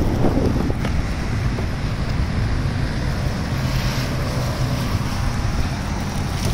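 Wind buffeting the microphone of a camera carried along on a moving ride: a steady low rumble and rush with no clear pitch.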